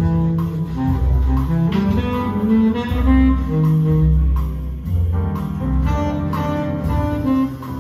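A jazz recording with saxophone and double bass played back over a pair of MBL 111 loudspeakers.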